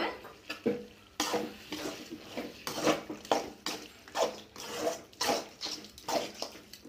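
Perforated steel ladle stirring and scraping chicken sukka around a steel kadai, a run of irregular scrapes about two to three a second after a quieter first second. The pan has just been sprinkled with a little water because the thickening masala had started to catch on the bottom.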